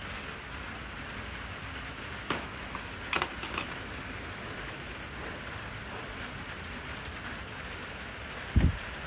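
Plastic wrapping around a bundle of fern saplings crinkles a few times as hands pull it open, over a steady hiss. A dull thump comes near the end.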